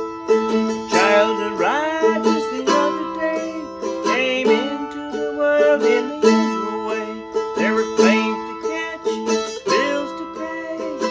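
Plucked acoustic string instrument playing a melody, with notes that bend up and down in pitch over sustained lower notes.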